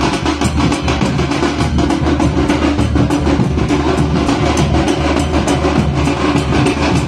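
Festival drumming: drums beaten loudly, fast and without a break.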